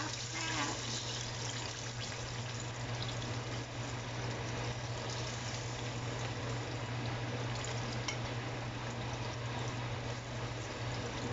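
Breaded chicken pieces deep-frying in a pan of hot oil: a steady sizzle and bubbling, with a low steady hum underneath and a light click of metal tongs about eight seconds in.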